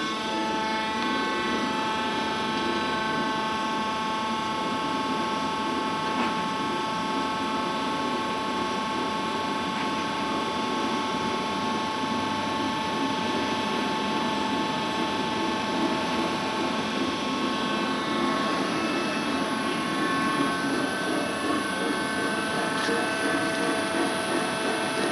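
Worm screen centrifuge running at speed, driven by an electric motor through a set of V-belts: a steady machine hum with a high whine made of several steady tones. It is on its test run after its worn rear main bearing locating diameter was sleeved and re-machined.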